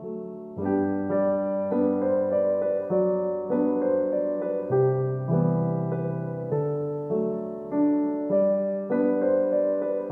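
Background piano music: a gentle melody of single notes struck one after another at an even pace.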